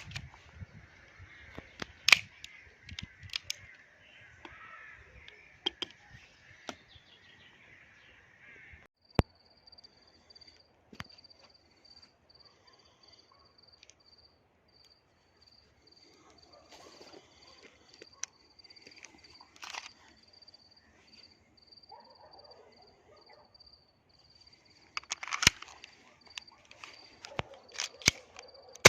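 An airsoft pistol firing scattered single shots, heard as a few sharp cracks spread far apart. Between them a faint high tone pulses steadily.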